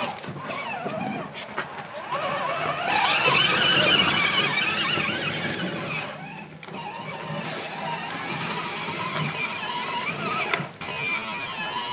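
Kids' 12V electric ride-on jeep's wheel motors and plastic gearboxes whining as it drives over dirt and turns, the pitch wavering and rising as it speeds up about three seconds in.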